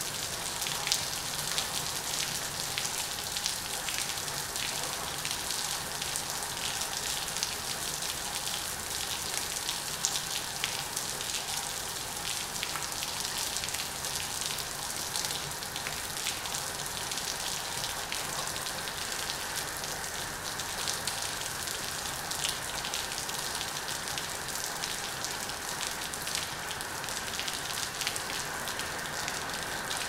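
Heavy rain falling steadily on wet pavement: an even hiss of rain with many distinct drop splashes ticking through it.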